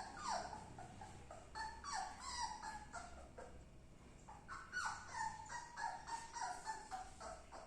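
Labrador puppy whimpering, a string of short whines that each fall in pitch, repeated many times.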